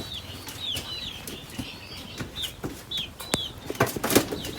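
A pen of seven-week-old chickens peeping with many short, high chirps, mixed with scattered sharp clicks and rustling from the birds moving.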